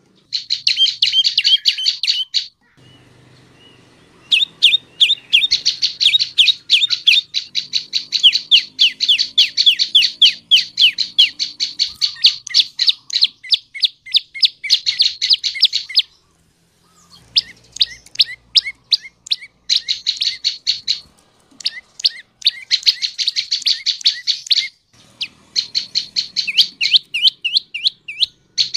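Prenjak lumut songbird calling: fast, loud trains of sharp chirping notes, about ten a second, delivered in bursts of one to several seconds with short pauses between them.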